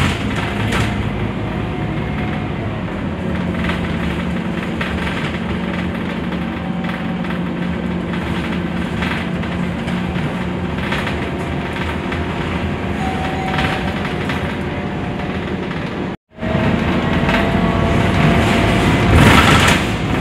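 Cabin noise inside a moving Scania articulated city bus: steady engine hum and road noise with occasional knocks and rattles. The sound cuts out for a moment about three-quarters of the way through, then returns louder.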